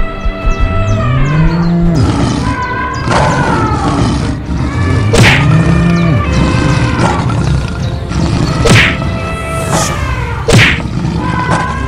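Cartoon fight soundtrack: repeated animal calls that rise and fall in pitch, over background music, with sharp hits about five, nine and ten and a half seconds in.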